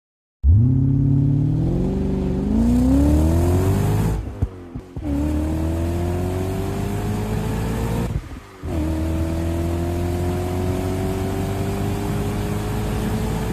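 Car engine accelerating hard through the gears: the pitch climbs, drops sharply at two gear changes about four and eight and a half seconds in, and climbs again after each.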